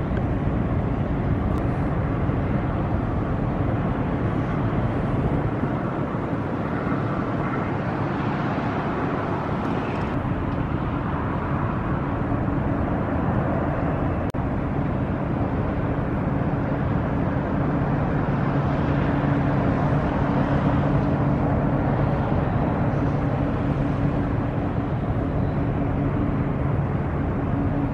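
Drone of a passing inland cargo barge's diesel engine: a steady low hum that grows stronger in the second half, under a constant rushing noise.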